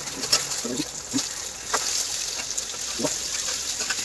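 Spam and hot dog sausage sizzling in a frying pan, with a few short clicks of a spatula against the pan.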